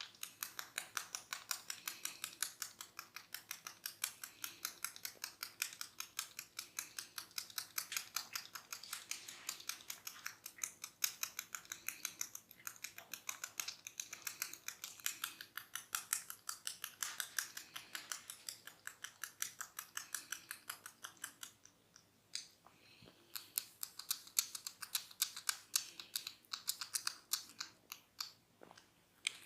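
Hair cracking: tufts of hair twisted and tugged between a barber's fingers against the scalp, giving a fast, even run of sharp crackling snaps, several a second. The snaps pause briefly about 22 seconds in, then resume.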